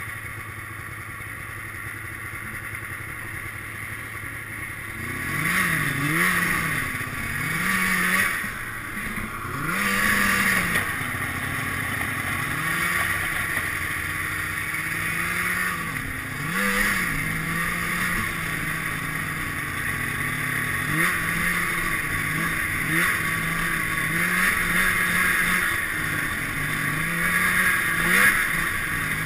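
Arctic Cat Sno Pro snowmobile's two-stroke twin engine running low and steady, then revving up and down several times from about five seconds in, before settling into a steady pull with small rises and falls in pitch.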